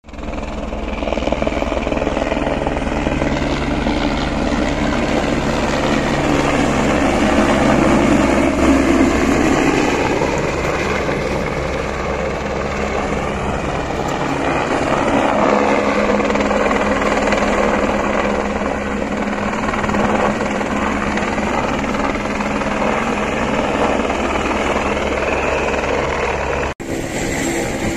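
Helicopter's rotor and engine running steadily and loudly as it flies in low and comes toward the ground to land, with a brief dropout about a second before the end.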